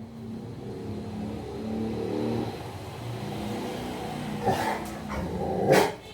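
A motor vehicle's engine running with a low, steady drone that rises and falls, then a dog barks twice near the end, the second bark louder.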